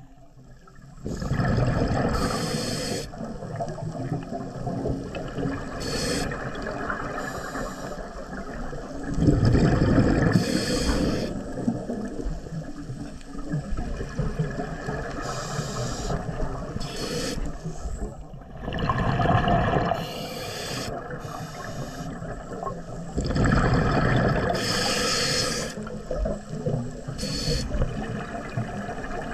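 Scuba diver breathing through a regulator underwater: about four long bursts of exhaled bubbles gurgling and rumbling, each a second or two long, with quieter hiss and bubbling between.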